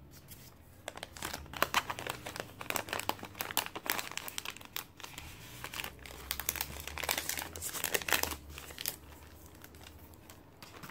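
Thin clear plastic sleeve crinkling and crackling as a stack of sticker sheets is worked back into it, in irregular crackles that ease off near the end.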